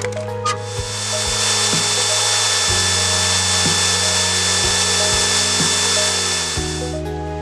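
Electric hand grinder's spinning wheel working the steel katana blade: a steady hiss with a faint high whine that starts about half a second in and stops near the end, over background music.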